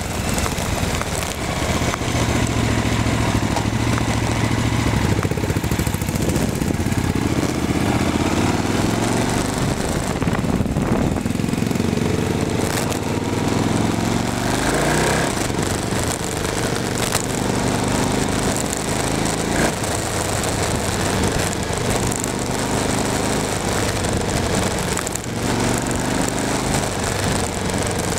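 KTM 950 Adventure S's V-twin engine running under way, its pitch rising and falling as the rider accelerates and eases off, with a rising sweep around the middle. A steady rush of wind and road noise runs underneath.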